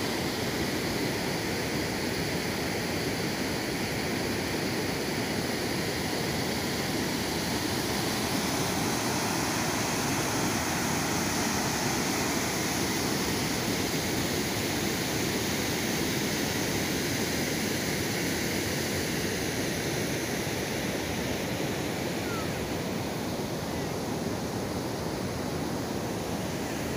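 Waterfall and river rapids rushing steadily.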